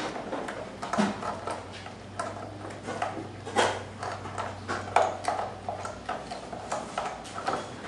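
Irregular small clicks and taps of plastic wire connectors and the scooter's plastic floorboard being handled while wiring is fitted beneath it, with sharper knocks at the very start and about five seconds in.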